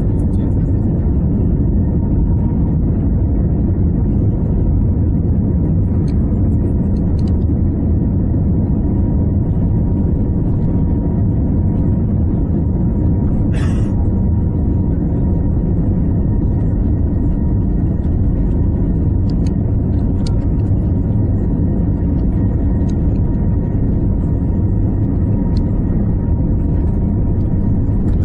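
Steady low rumble of cabin noise inside an Airbus A320-family jet rolling on the ground, heard from a window seat, with a faint steady whine over it. There is one brief click about halfway through.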